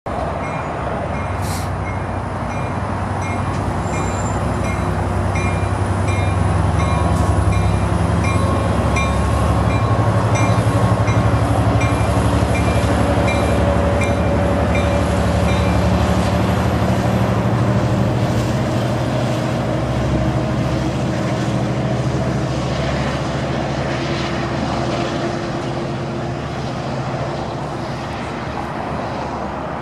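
Amtrak Pacific Surfliner passenger train departing, led by an F59PHI diesel locomotive: the engine drone grows louder as it comes past, then eases as the bilevel cars roll by. A bell dings steadily, about one and a half times a second, through the first half and then stops.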